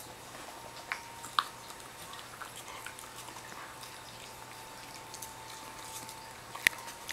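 Akita dog gnawing a small dried hoof chew: sharp cracks and crunches of teeth on hard hoof, the loudest about a second in, once more just after, and again near the end.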